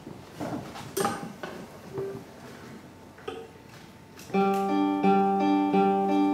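Fiddle-and-guitar ensemble starting a Scottish traditional tune about four seconds in, a steady repeating pattern of notes. Before it come scattered small knocks and a few stray notes.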